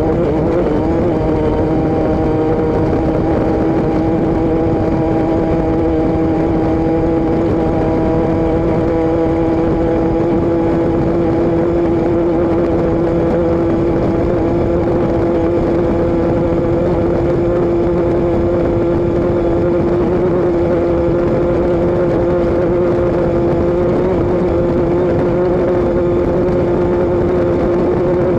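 A vehicle's engine and exhaust running steadily, holding one droning note at a constant speed, with a slight wobble in pitch about a second in.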